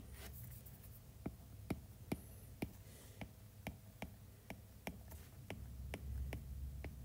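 A stylus tip clicking against an iPad's glass screen while handwriting, in light, sharp ticks about two a second.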